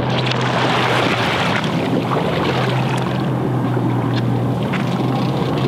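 Boat engine running with a steady low hum, under a hiss of wind and water along the hull.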